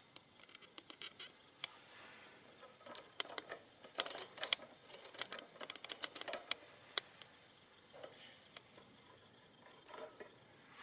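Small clicks and rattles of an Underwood 300R adding machine's ink-ribbon spool and print mechanism being handled, coming in irregular clusters, with a short knock near the end as the plastic top cover is set back in place.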